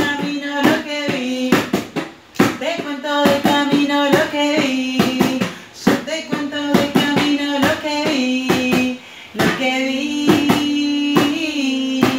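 A woman and a girl singing a children's song with held notes, keeping a beat by slapping a cardboard box and a metal tin can with their hands as homemade drums.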